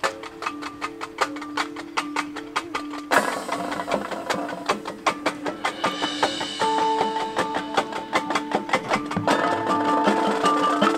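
Marching band performing live: fast, even percussion strokes over mallet percussion and held notes, with a fuller ensemble and a splash of cymbal-like noise coming in about three seconds in.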